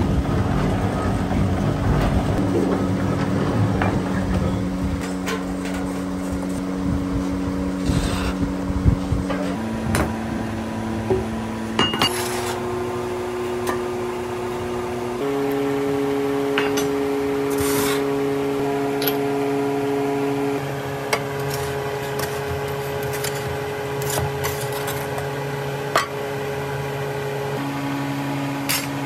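Background music of sustained notes that change pitch every few seconds, with occasional short knocks and clinks from moulding sand being packed into metal mould flasks.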